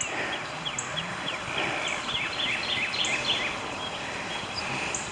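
Outdoor chorus of small chirping animals: many short, high, falling chirps overlapping, several a second, over a steady background hiss.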